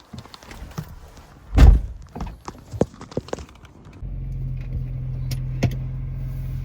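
Knocks and clicks with one heavy thump of a car door shutting, then a car engine starts running about two-thirds of the way in and keeps a steady low hum.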